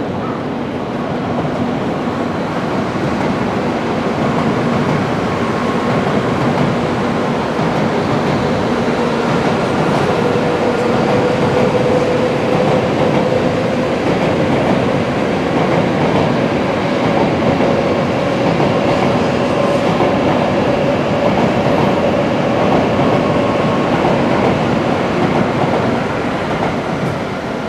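Shinkansen bullet train running along an elevated track: a steady rumble and rush of wheels on rail that swells in the first few seconds and eases near the end, with a faint whine rising slowly through the middle.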